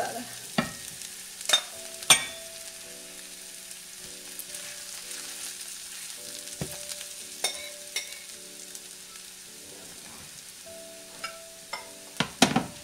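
Metal spoon stirring mashed boiled potato filling in a nonstick frying pan over a light sizzle, with sharp knocks of the spoon against the pan a few times and a quick cluster of them near the end.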